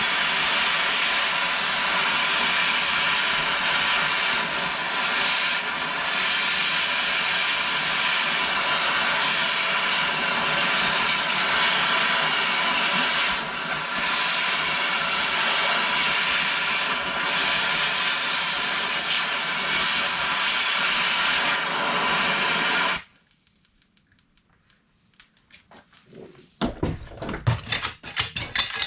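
Harbor Freight pneumatic angle grinder running free at full air pressure, a steady high-speed whine over loud hissing air, while it is run until it overheats. It cuts off suddenly about 23 seconds in; a few clunks and rattles follow near the end.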